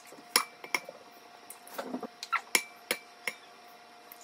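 Eggs cracked on the rim of a glass jug: a string of sharp taps and clinks of shell on glass, some ringing briefly.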